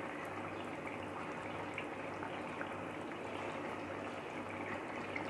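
Chicken and potato gravy simmering in a pan: a steady bubbling hiss with faint scattered pops, over a faint steady hum.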